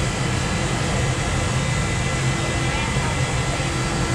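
Steady mechanical roar with a constant low hum underneath, like street traffic mixed with a running fan or motor; faint voices in the background.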